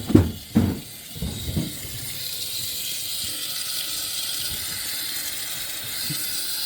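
Compressed air hissing steadily out of a leaking high-pressure oil standpipe in a 6.0L Power Stroke diesel, with oil and air moving at the leak; the oil system is being pressurized with shop air. A few low thumps come in the first second and a half, then the hiss grows slightly louder.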